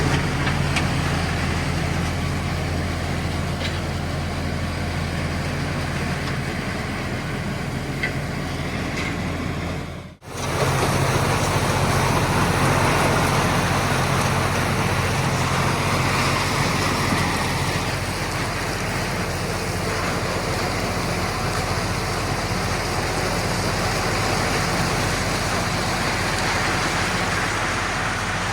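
LS MT357 compact tractor's diesel engine running steadily, with a momentary break about ten seconds in.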